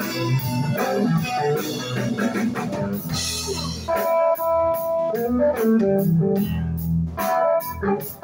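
Live blues-rock band playing: electric guitar phrases and held notes over bass and a drum kit, with a steady drum beat coming in about four seconds in.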